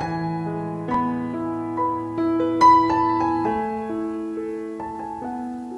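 Background music: a slow, gentle piano melody of single held notes.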